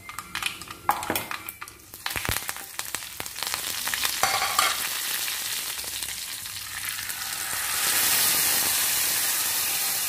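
Curry leaves and mustard seeds crackling and sizzling in hot sesame oil for a tempering. Scattered sharp pops come first, then a steady sizzle that grows louder about three-quarters of the way through.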